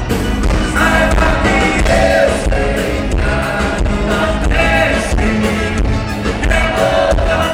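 Live sertanejo band playing, with a male lead singer singing the melody over accordion, electric guitar, bass, keyboard and drums.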